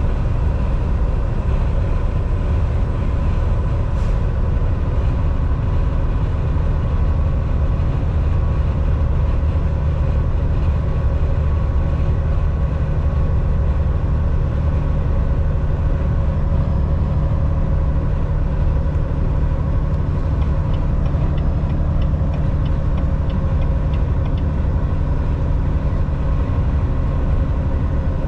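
Volvo semi truck cruising on the highway, heard inside the cab: a steady drone of engine and road noise with faint whining tones above it, unchanging throughout. A faint click about four seconds in.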